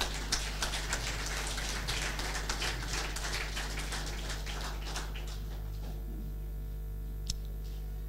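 Scattered applause from a small congregation, thinning out and dying away about five seconds in.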